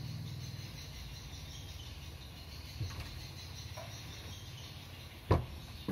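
Background of insects chirping over a steady low hum, with a sharp knock about five seconds in and a fainter click about three seconds in.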